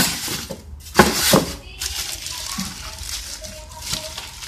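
Packing being handled in a cardboard box: styrofoam inserts and the plastic bag around a projector knock and rustle, with a few sharp knocks in the first second and a half, the loudest about a second in, then quieter rustling.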